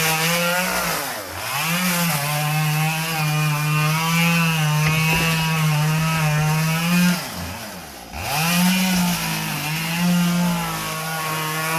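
Chainsaw running at full throttle, cutting into a palm trunk. It drops off throttle briefly about a second in and again for about a second after seven seconds, revving back up each time.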